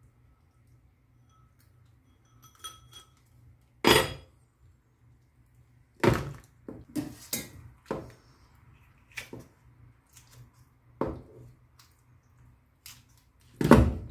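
A metal spoon clinking and scraping against a small glass bowl and lobster shell while scooping out the tomalley and roe, then knocks and cracks of the lobster shell being handled and pulled apart on a plastic cutting board. About a dozen scattered sharp knocks, the loudest about four seconds in and near the end.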